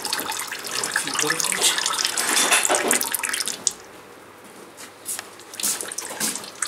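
Used engine oil pouring from a car's sump drain hole into a container, a steady splashing stream that stops about three and a half seconds in. A few light knocks and scuffs follow.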